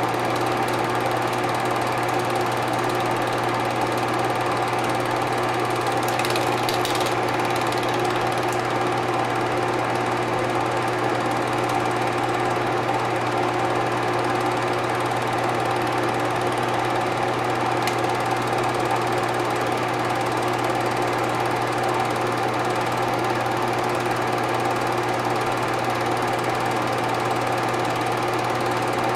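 Steady mechanical whir and hum of a film projector running, with several held tones and an even level throughout.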